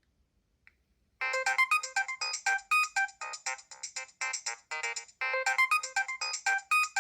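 Nokia 7250i polyphonic ringtone starting about a second in: a quick, bright melody of short notes whose phrase repeats after about four seconds.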